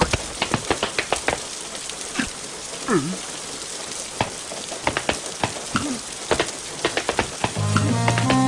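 Rain falling steadily, with many scattered drip and drop clicks. A brief gliding vocal sound comes about three seconds in, and a few held musical tones come in near the end.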